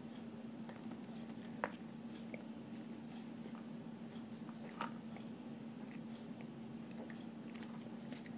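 A person chewing a mouthful of raw cornstarch with her mouth closed: scattered soft crunches and clicks, with two sharper clicks about a second and a half and about five seconds in. A steady low hum runs underneath.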